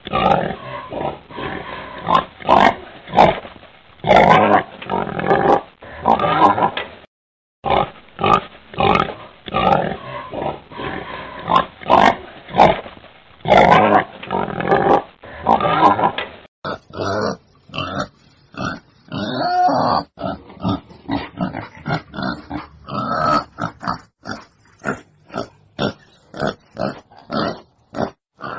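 Wild boar grunting over and over in short, rapid grunts, a recorded lure call for hunters. There is a brief break about seven seconds in, and the sound switches to a different, brighter recording about sixteen seconds in.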